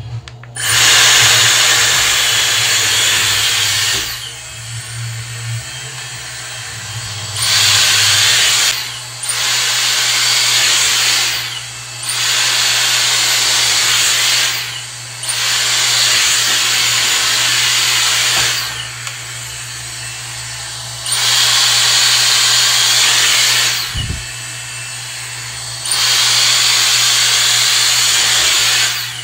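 Dyson Airstrait blowing hot air through wet hair to dry and straighten it: a steady motor-driven rush of air that surges louder for a few seconds at a time, again and again, and eases between passes.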